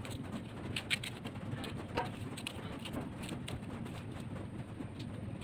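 Knife cutting through raw green mango held in the hand: scattered small crisp cuts and clicks, the sharpest about one and two seconds in, over a low steady background.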